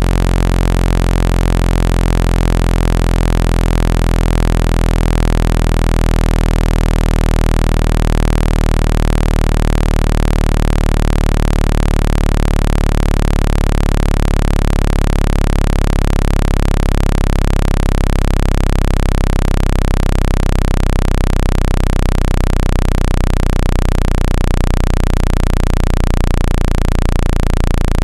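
Loud, steady low-pitched electronic test tone with a ladder of overtones, played through a phone speaker at full volume to vibrate trapped water out of the grille. Its low end starts to waver about five seconds before the end.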